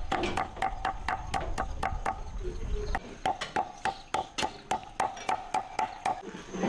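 Rapid, evenly spaced knocks on wood, about four to five a second, each with a short ringing tone, pausing briefly about three seconds in.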